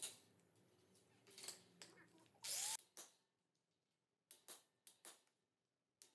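Sharp, scattered metal clicks and taps as steel scroll-work is chiselled and worked loose from a flat iron grille. About two and a half seconds in there is one louder, brief scrape.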